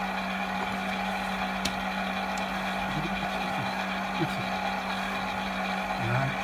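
Stand mixer's motor running steadily, its dough hook turning a dry, crumbly flour mixture in a stainless steel bowl, with one small click about one and a half seconds in.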